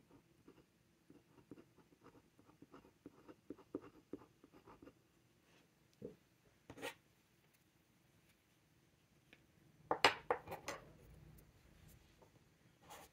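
Metal dip-pen nib scratching faintly on card stock as a word is lettered, a quick run of small strokes. A few seconds later a cluster of louder clicks and taps as pens are handled and put down on the table.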